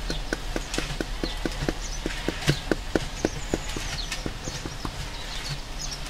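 A stone edging slab being tapped down into its wet concrete bed: a steady run of short, sharp knocks, about four a second, that stops about five seconds in. Birds chirp in the background.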